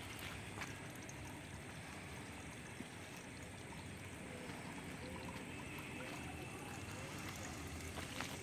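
Steady outdoor background noise, an even hiss and rumble with no clear single source, and a faint click shortly before the end.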